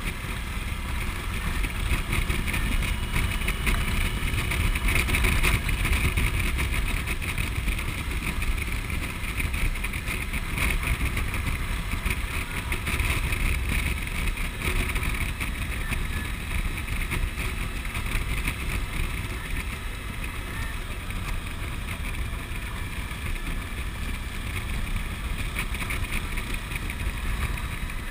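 Suzuki V-Strom's V-twin engine running steadily at cruising speed, mixed with the rush of wind over the bike-mounted microphone.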